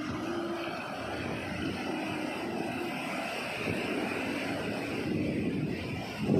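Small waves breaking and washing up a sandy beach, with a steady engine drone in the background.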